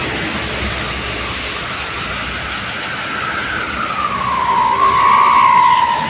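Steady toll-road traffic passing, with a bus coming by close near the end, its whine sliding down in pitch and getting louder as it passes.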